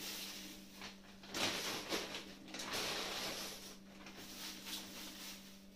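Thin plastic bags rustling and crinkling as dry pasta is handled and sorted into them, loudest for a second or two near the middle. A faint steady hum runs underneath.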